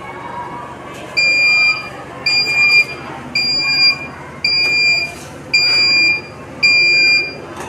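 Smarten Superb 15 kVA solar PCU's buzzer beeping six times as the inverter switches on, about one half-second beep a second on a steady high tone.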